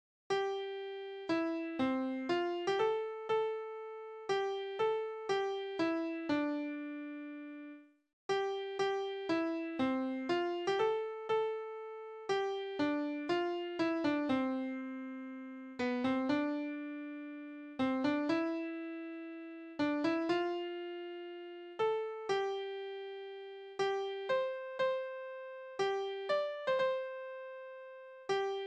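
Piano playback from Crescendo music-notation software playing a school song's melody alone, one note at a time at ♩=120, each note sounding then fading. There is a short break after the first phrase, about eight seconds in, before the melody picks up again.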